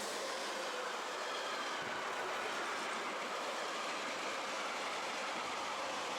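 A train passing close by: a steady rush of wheel-on-rail noise.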